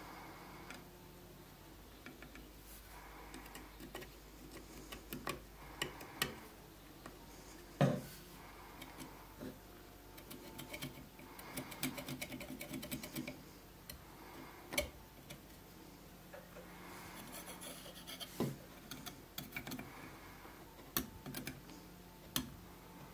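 Small pointed metal pick scratching and scraping in holes in the wooden body of an old hand plane, in short bouts, with scattered sharp clicks and taps, the loudest about eight seconds in.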